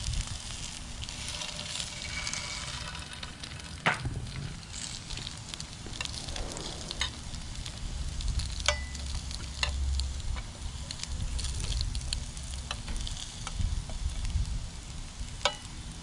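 Boiled potatoes and whole eggs sizzling in an electric skillet, with a few sharp clicks of a fork against the pan as they are turned.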